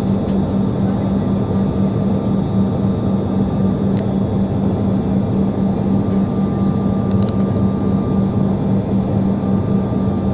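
Passenger airliner's engines droning steadily, heard from inside the cabin, with an even rushing noise and a constant low hum. A few faint clicks sound about four and seven seconds in.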